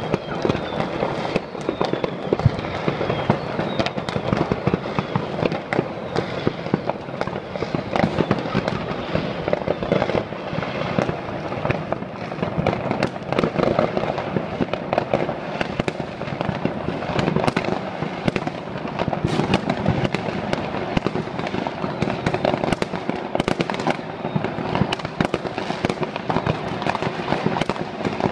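Many fireworks and firecrackers going off at once all over a city, a continuous dense crackle of bangs and pops with no let-up.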